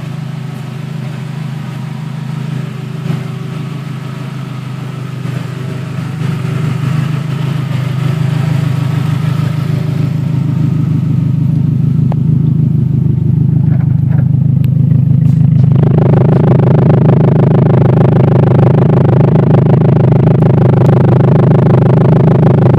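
Modified Toyota Camry race car's engine idling steadily, loud and low-pitched. About two-thirds of the way through it turns suddenly louder and fuller, heard up close by the exhaust at the rear.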